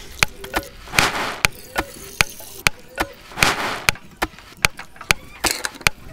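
Cooking sounds edited into a steady beat: sharp knocks like chopping, about two and a half a second, with a swell of rushing noise about a second in and again past three seconds.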